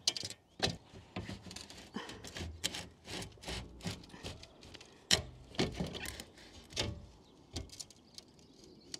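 A pane of greenhouse glass being pushed up along the aluminium roof glazing bars: irregular clicks, knocks and scraping as the glass rubs in the frame and shaves the rubber seal.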